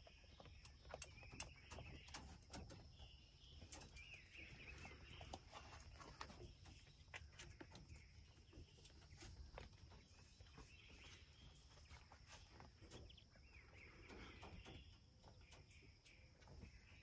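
Faint quail calls in a few short spells, over scattered soft clicks and rustles of footsteps and handling in straw bedding.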